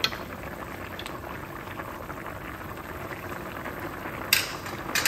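Pork-belly cooking liquid of water, dry wine and tomato sauce boiling steadily in the pot, at the boil and ready for the rice. A few sharp knocks come through it, the loudest about four seconds in and another just before the end.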